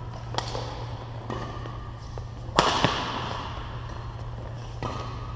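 Badminton rackets striking a shuttlecock in a rally: a few sharp hits that echo in a large hall, the loudest about two and a half seconds in, with a second hit right after it.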